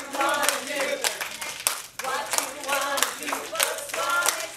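A group of people clapping their hands in rhythm, with voices joining in short sung phrases over the claps.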